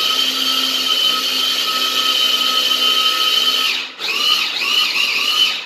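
Electric food processor motor whining steadily at full speed as it grinds onion, garlic, rice and herbs loosened with oil. About four seconds in it dips, then revs up and down in several short pulses before stopping.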